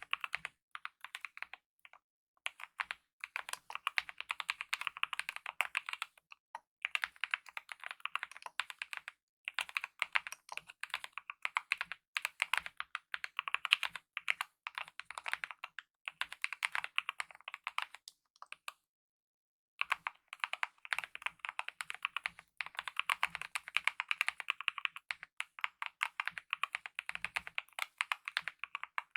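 Typing on a Kemove mechanical keyboard with lubed optical red linear switches and DSA-profile keycaps: fast runs of key presses broken by short pauses, with one full stop of about a second about two-thirds of the way through.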